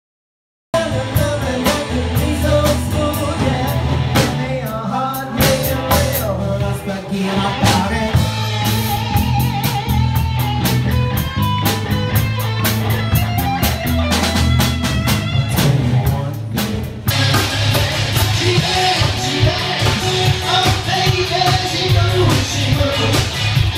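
Rock band playing a Latin-style song, with electric guitar, bass, drum kit and sung vocals. It starts about a second in, and the sound changes after a brief dip about two-thirds of the way through.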